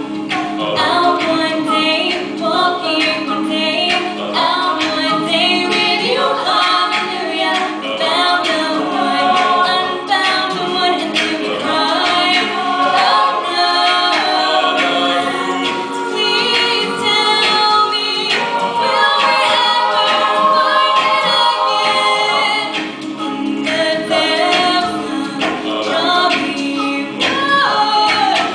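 Mixed a cappella group of men and women singing in harmony without instruments, steady low notes held under moving upper voices.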